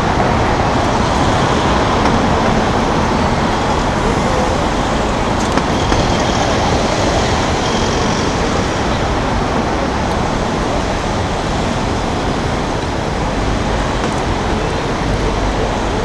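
Steady city traffic noise from cars and vans passing through a busy intersection, with a crowd of pedestrians talking.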